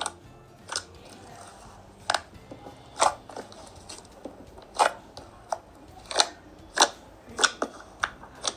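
Slime being squeezed and pressed, giving about a dozen sharp clicking pops at an uneven pace.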